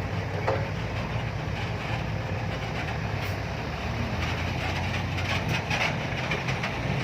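Heavy diesel engine running steadily, with a quick run of clicks and rattles near the end.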